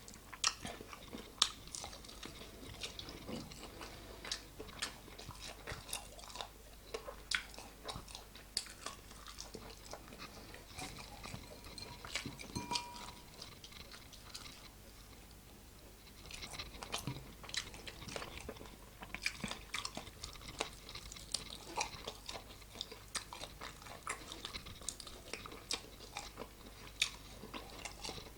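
Close-miked chewing and biting of chicken wings, with a run of crisp crunches and sharp mouth clicks. There is a brief quieter lull about halfway through.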